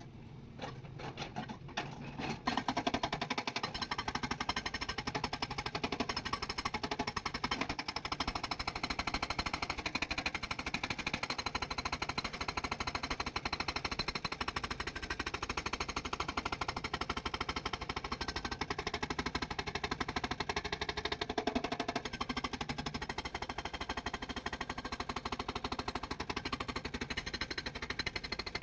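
Excavator's diesel engine running with a fast, steady clatter, rising about two seconds in.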